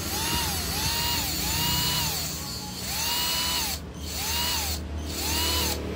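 The DC motor and gearbox of a cheap Aotuo cordless drill are run in short trigger bursts, about seven times. Each burst is a whine that rises, holds briefly and falls. The run spins the freshly greased gears.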